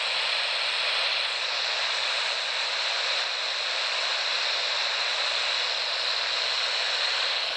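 CB radio receiver putting out a steady static hiss, as from an open squelch or a weak unmodulated signal.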